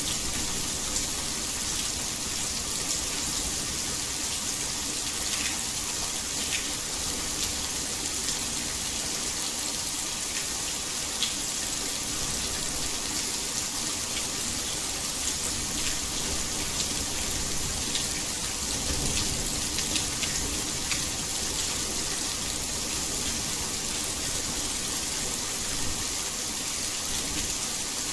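Heavy, steady rain falling: a dense hiss with scattered louder drops.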